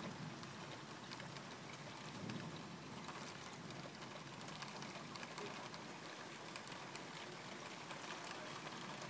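Steady rain falling, a continuous hiss dotted with many small, sharp drop hits.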